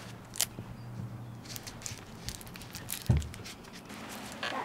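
Plastic bags and masking tape crinkling and crackling as a small taped figure is handled and wrapped, with scattered sharp crackles and one dull thump about three seconds in.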